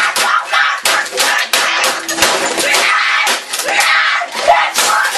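A boy screaming in rage over a rapid run of smacks and crashes, typical of fists hammering a computer keyboard. The noise is loud and continuous.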